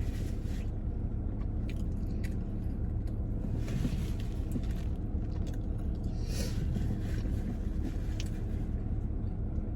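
Steady low rumble of a car heard from inside the cabin, with chewing and a few short clicks over it.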